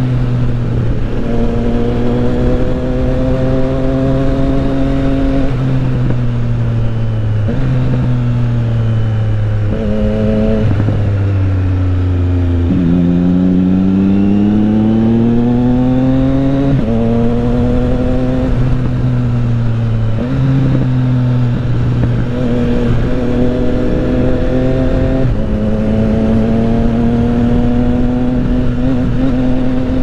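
Motorcycle engine heard from the rider's seat while riding, its pitch holding, then stepping down several times with gear changes and throttle lifts, with one longer rising pull about halfway through. A steady wind rush runs underneath.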